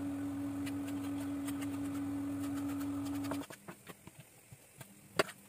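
A steady low hum, about 20 dB louder than anything else, cuts off suddenly a little past halfway. Under it and after it come faint taps of a knife on a wooden cutting board as raw chicken fillet is cut into cubes, with one sharper knock near the end.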